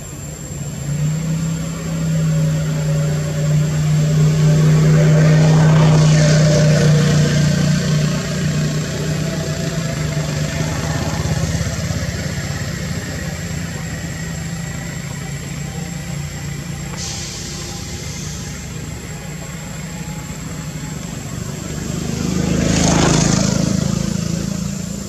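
Motor vehicle traffic on a nearby road: a steady low engine drone builds over the first seconds, and two vehicles swell and fade as they pass, one about a quarter of the way in and a louder one near the end.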